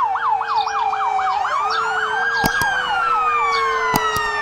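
Toy ambulance's electronic siren in a fast yelp, rising sweeps about five a second, which changes after about two seconds into a long slow wail that rises and then falls. A few sharp clicks sound over it.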